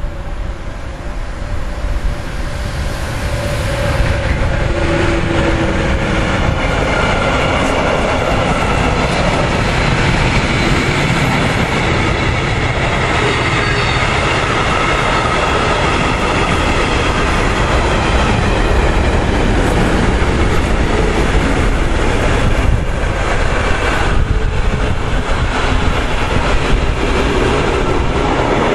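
Intermodal freight train of container and trailer wagons rolling past close by, the steady rumble of steel wheels on the rails. It builds up over the first four seconds or so as the train arrives, then stays loud and steady as the wagons go by.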